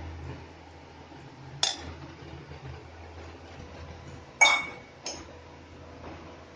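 Stainless-steel kitchen utensils clinking: three sharp metallic knocks, the loudest about four and a half seconds in with a brief ringing tone, over a faint low hum.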